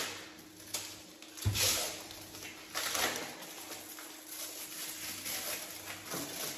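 Snack-bar wrapper crinkling and tearing as it is opened by hand, in irregular crackly bursts. A thump on the counter about one and a half seconds in is the loudest sound. A faint steady hum runs underneath.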